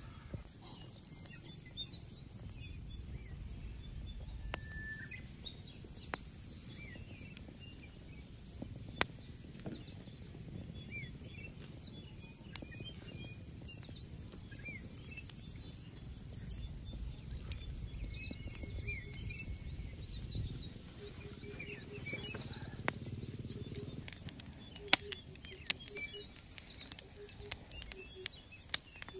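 Small birds chirping and twittering over a low outdoor rumble, with a few sharp clicks scattered through.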